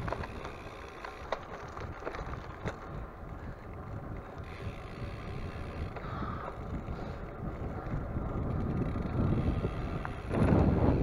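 Wind rushing over the microphone while a bicycle is ridden along a road, with a few sharp ticks. The rush gets clearly louder about ten seconds in.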